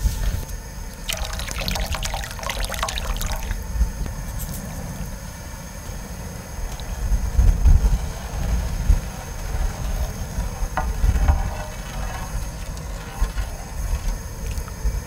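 Hot broth sloshing and bubbling in a large cast-iron cauldron as a metal ladle stirs it, with a denser splashing stretch about a second in and a few light clinks later. A low rumble of wind on the microphone runs underneath.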